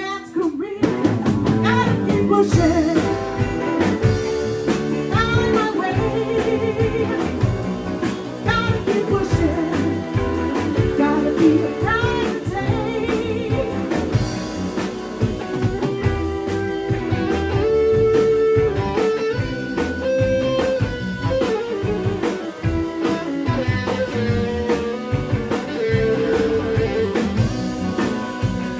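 Live electric blues band playing: a woman singing lead over two electric guitars, electric bass and a drum kit.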